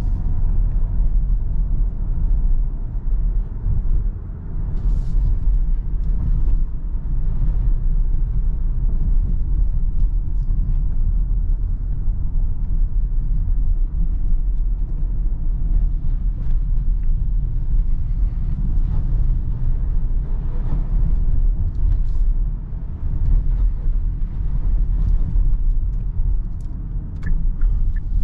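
In-cabin noise of a Kia Sorento 1.6 T-GDI hybrid SUV driving slowly on wet pavement: a steady low rumble of tyres and drivetrain.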